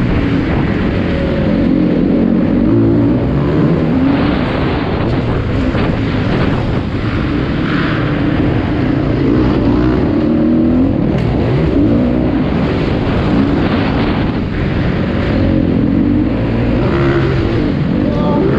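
Motocross bike engine ridden hard on a dirt track, heard up close from on the bike, its revs rising and falling over and over as the throttle opens and closes.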